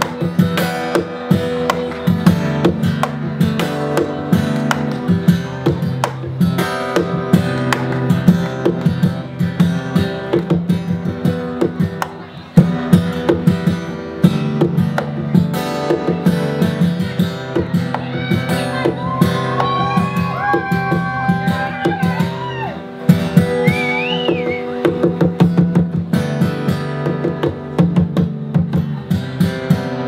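Acoustic guitar played flat across the lap in an instrumental passage: rapid percussive slapping and tapping on the strings over ringing chords, with a few sliding high notes about two-thirds of the way through.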